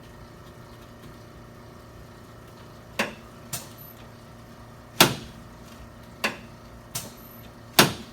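Chiropractic drop table's sections snapping down under the adjuster's thrusts: six sharp clacks starting about three seconds in, the loudest about five and eight seconds in.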